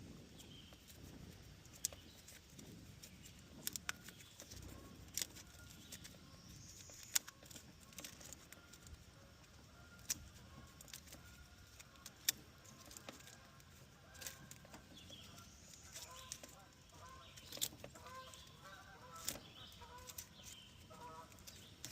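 Faint scattered clicks and light rattles of an old car's wiring harness being handled and pulled out. In the second half, short repeated clucking calls, like hens, sound in the background.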